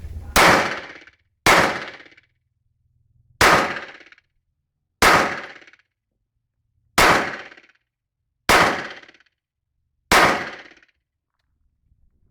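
Seven pistol shots from an X9 Tactical pistol, fired singly at an uneven pace of about one every one and a half to two seconds, each with a short echoing tail.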